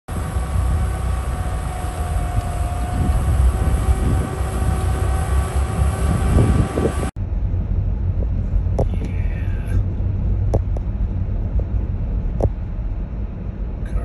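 A rotary snow blower running in a blizzard: a heavy low drone with a steady whine over it. It cuts off abruptly about halfway through and gives way to the steady low rumble of a vehicle driving through the storm, heard from inside, with a few faint ticks.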